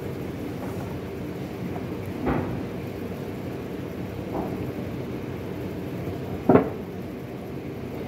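Heavy plaster mould pieces knocking as they are lifted and set down around a cast toilet body: a knock about two seconds in, a faint one a couple of seconds later, and the loudest near the end. A steady machinery hum runs underneath.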